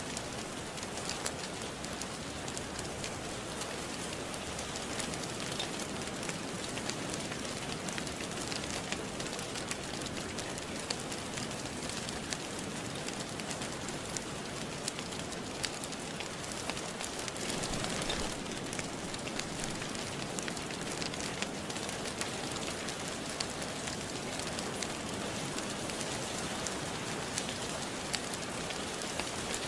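Steady rain falling, with the sharp scattered pops and crackles of a wood fire in a fireplace throughout. The rain briefly swells about two-thirds of the way through.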